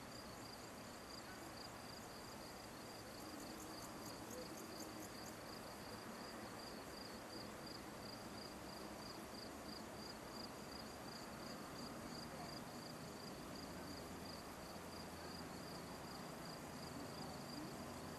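Faint insects chirping: a high, steady pulsing trill that repeats several times a second, over a soft hiss. A second, higher rapid ticking call joins for a couple of seconds a few seconds in.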